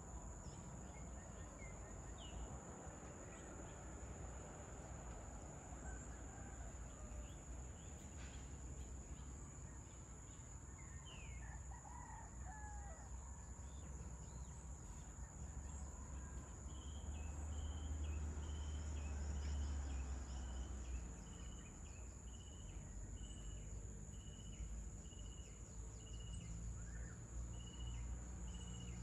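Outdoor ambience of a steady high-pitched insect drone, with roosters crowing and scattered bird chirps. Through the second half a short high chirp repeats about every two-thirds of a second, and a low rumble swells and fades just past the middle.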